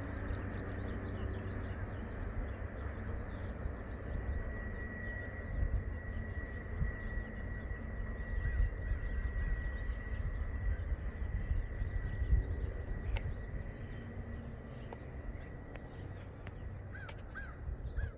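Low steady rumble of a train. A thin high tone holds for several seconds in the middle, and a few short bird calls come near the end.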